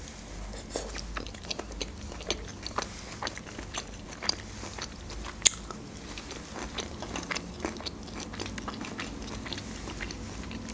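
Close-miked chewing of a mouthful of soy-sauce-fried beef strips: many small wet mouth clicks and smacks, with one louder click about halfway through.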